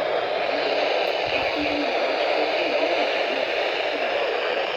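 Steady radio static hiss from a receiver, with no speech coming through, in a pause of a broadcast severe thunderstorm watch.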